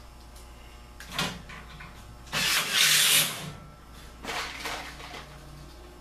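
Sheet-metal and tool handling noises at a furnace's filter rack: a short knock about a second in, a loud harsh burst lasting about a second near the middle, then a softer rattle.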